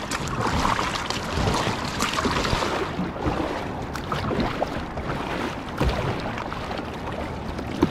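Double-bladed kayak paddle strokes dipping and splashing in the sea, with water washing past the kayak's hull.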